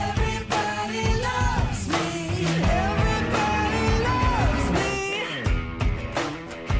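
A song: a sung vocal line over a steady drum beat and backing instruments; the voice drops out about five seconds in while the beat carries on.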